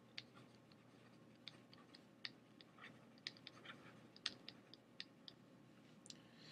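Faint, irregular ticks and taps of a stylus on a drawing tablet as words are handwritten, roughly three a second.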